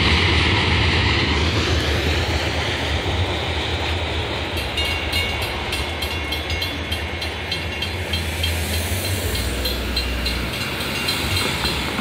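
A freight train rolling away, its wheels rumbling on the rails and slowly fading. From about five seconds in, the grade crossing's warning bell rings at an even pace while the gates rise.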